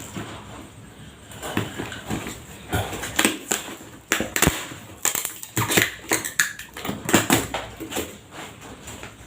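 Irregular clicks, taps and rustles of a new steel pressure cooker and its packaging being handled.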